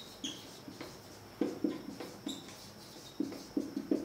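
Felt-tip marker squeaking and ticking on a whiteboard in short, irregular strokes as words are handwritten, with the strokes coming faster near the end.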